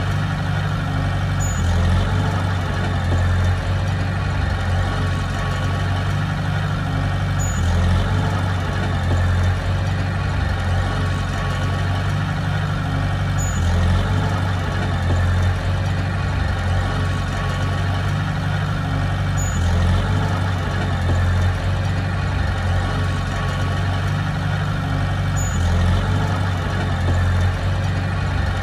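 Heavy diesel engine of construction machinery running steadily, its low rumble swelling in an even cycle about every six seconds.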